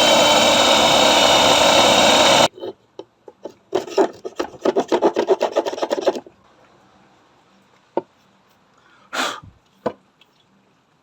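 Electric drill running at full speed through a TV wall bracket, its motor whine cutting off about two and a half seconds in. A few seconds of fast rhythmic scraping follow, then a click and a short burst of noise near the end.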